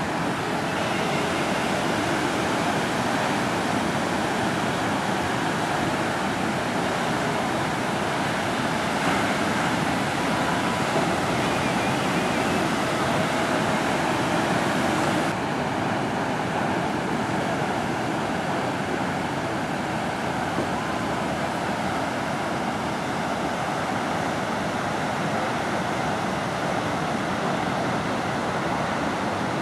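Ocean surf: a steady, even wash of waves with no single loud break standing out. The high hiss drops away suddenly about halfway through.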